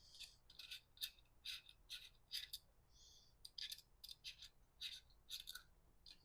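Faint, irregular light clicks and rattles, about two a second, from small metal bicycle parts being handled during a mid-drive motor install.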